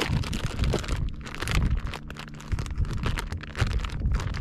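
Plastic lure packet crinkling as it is handled and rummaged through, with quick irregular crackles.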